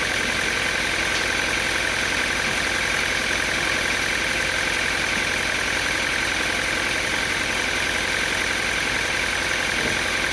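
An engine running steadily at a constant speed, with no change in pitch or level.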